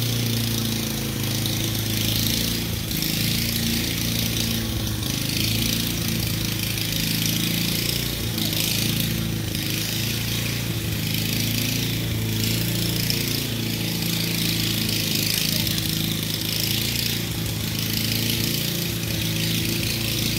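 Small petrol engine running steadily, its pitch shifting a little up and down as it works, typical of yard power equipment such as a trimmer or mower.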